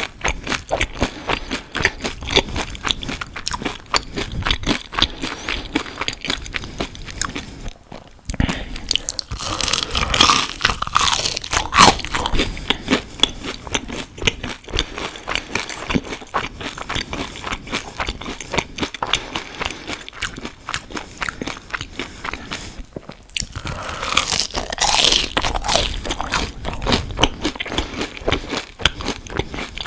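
Close-miked eating: steady chewing with crisp crunching bites of battered, fried onion rings. The crunching comes in two louder runs, about ten seconds in and again about twenty-five seconds in, with short pauses just before each.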